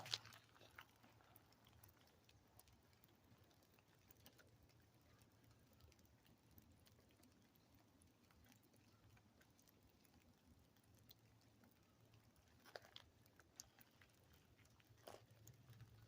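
Near silence: a faint low hum with a few scattered soft clicks and rustles.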